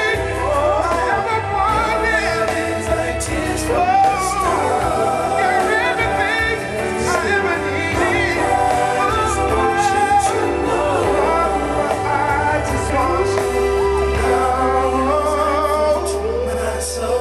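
A song with singing over a steady bass line, its melody bending and gliding, with a long held note near the end.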